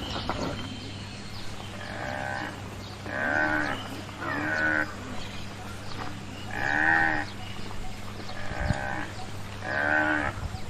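Water buffalo calling: a series of about six short, bleat-like calls, each under a second long, with a faint steady low hum underneath.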